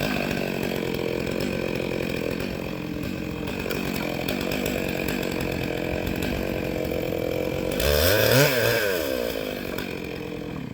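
Chainsaw engine running steadily, then revved up sharply about eight seconds in, its pitch rising and falling back. The level dies away near the end.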